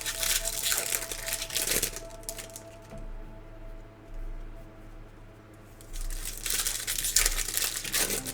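Trading-card pack wrappers crinkling and tearing open in two bursts: one lasting the first couple of seconds, another starting about six seconds in.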